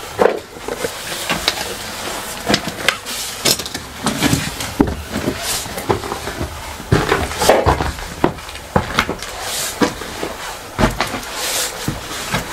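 Footsteps climbing a staircase: irregular knocks and thumps, with a few heavier thuds.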